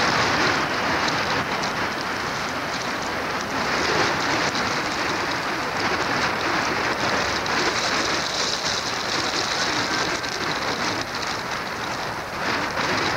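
Steady rushing hiss of wind across open snow, with a fine crackling texture throughout.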